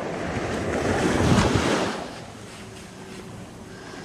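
Small waves lapping and washing up a sandy shore at the water's edge, with wind on the microphone. The wash swells about a second in, then dies down to a softer lapping.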